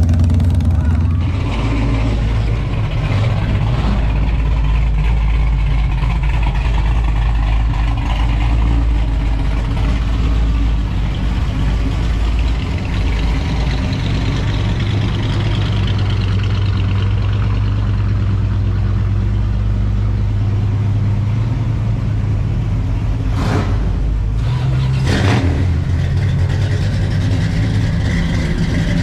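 A car engine running at idle: a steady low engine note that shifts about a second in and again about 21 seconds in, with two brief sharp knocks near the end.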